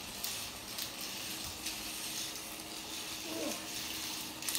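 Remote-control toy snake crawling across a tile floor: a steady hissing rasp with a few faint clicks.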